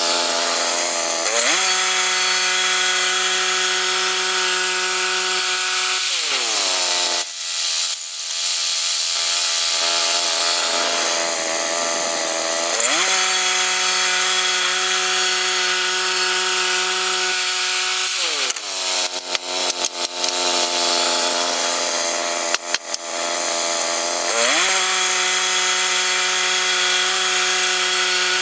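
Petrol engine of a sawmill cutting pine lumber, held at a steady high speed while sawing. Twice it drops back to idle for several seconds, then speeds up again into the next cut, with a few sharp clicks in the second pause.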